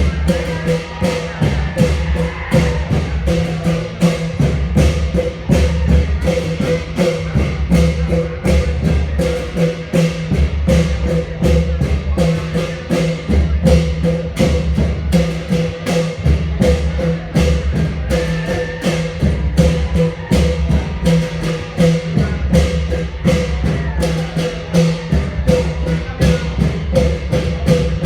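Thai klong yao long-drum ensemble playing a traditional rhythm: deep drum beats in a repeating pattern over a fast, even run of sharp clicks.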